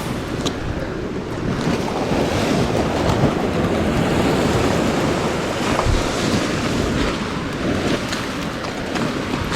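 Sea waves washing against the shore in a swell, with wind buffeting the microphone; the surf swells up through the middle and eases again toward the end.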